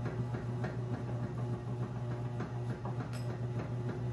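A steady low hum, with faint soft taps and rustles from hands braiding dough strands on a countertop.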